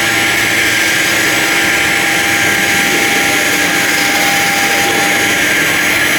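ELE2128ATC CNC router running steadily: an even, loud rushing noise with a constant high whine from the machine, with no change in pitch or level.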